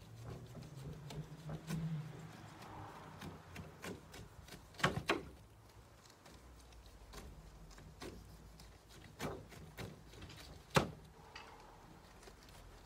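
Knife slicing the rind off a whole pineapple in downward strokes, with scattered sharp knocks and scrapes, the loudest about five seconds in and again near eleven seconds.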